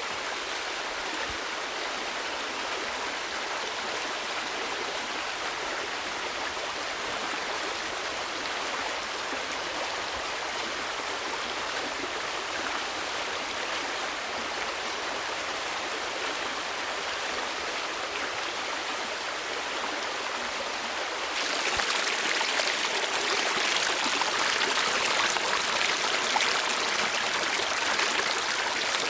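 Steady rush of flowing water from a stream. About 21 seconds in it turns abruptly louder and brighter.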